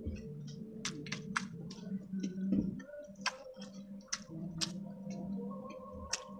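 Close-up eating sounds: chewing with wet lip-smacks and mouth clicks, irregular and sharp, as squid adobo and rice are eaten by hand. A steady low hum runs underneath.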